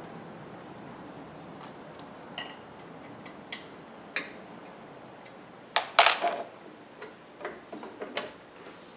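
Light metallic clicks and clinks of hand tools and parts against the lathe's steel motor bracket, some with a brief ring. About six seconds in comes a louder clatter of several knocks close together.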